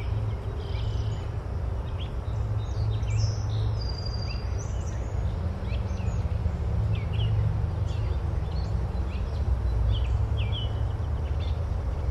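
Birds chirping in many short, separate calls over a steady low rumble.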